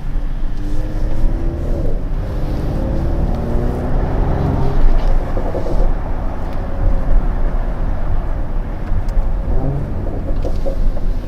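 Mercedes-AMG GLE 53 Coupe's turbocharged 3.0-litre inline-six running under way, its engine note rising in pitch as it pulls in the first few seconds and again near the end.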